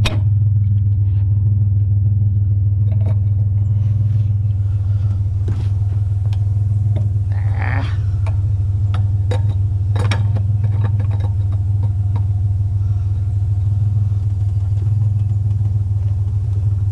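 Truck engine idling steadily with a low hum, over scattered metallic knocks and clinks, plus a short scrape about eight seconds in.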